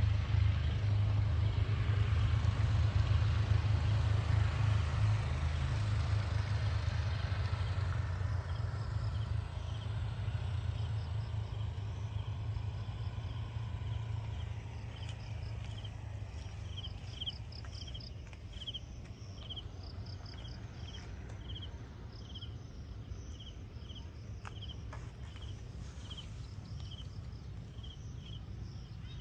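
A car drives past and its tyre and engine noise fades away over the first several seconds, leaving a low outdoor rumble. From about halfway through, an insect chirps in a steady, high-pitched pulse, about one and a half chirps a second.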